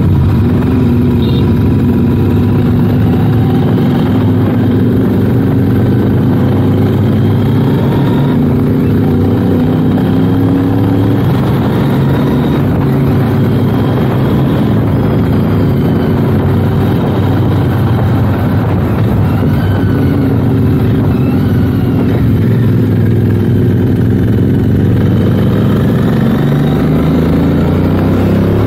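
Royal Enfield 650's parallel-twin engine running under way at a steady road speed, its pitch dipping near the start and climbing again near the end with the throttle.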